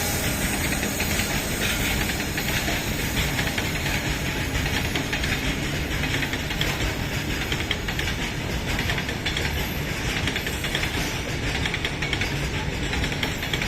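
Indian Railways goods train rolling past on the track: a steady rumble with a close, even clatter of wheels over the rails.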